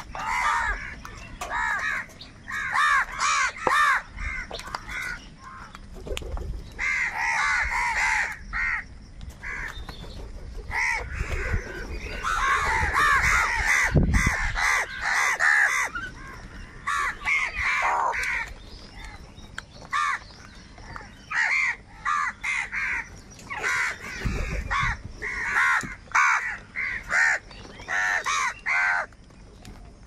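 A flock of house crows cawing, many harsh caws overlapping in busy bursts with short lulls between. A low thump sounds twice, about halfway through and again later.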